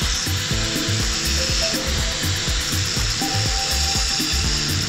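Handheld angle grinder running and cutting a small piece of steel, its disc giving a high steady whine. Background music with a regular beat plays over it.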